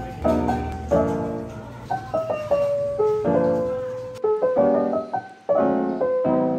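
Background music played on piano, with chords struck about once a second and each one fading before the next.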